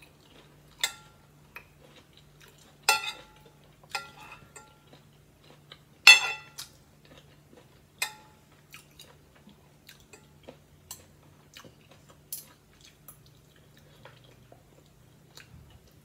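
Metal spoon and fork clinking against a glass plate while eating, about seven sharp ringing clinks a second or two apart, the loudest about six seconds in, with soft chewing between.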